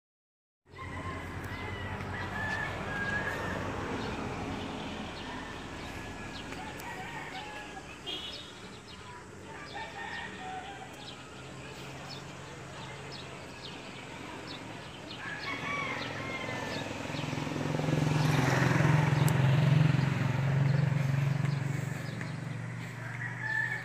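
Outdoor garden ambience with birds calling, including chicken-like calls, starting after a brief silence; the sound swells louder for a few seconds about three-quarters of the way through.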